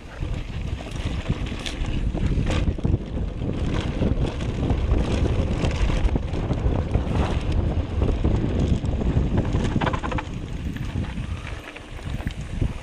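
Mountain bike descending a dry dirt trail at speed: heavy wind rumble on the microphone over the tyres' rolling noise, with several sharp clattering knocks from the bike over bumps.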